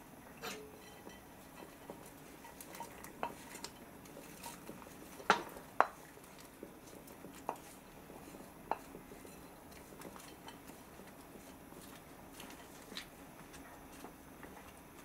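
Rice porridge stirred in a pot with a wooden spatula, with scattered knocks and clinks of utensil and a plate against the pot, the two loudest close together about five seconds in. Sliced turnip and radish are tipped in from a ceramic plate and stirred through the porridge.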